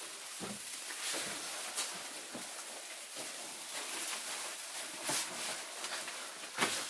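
A steady hiss with a few faint knocks and rustles.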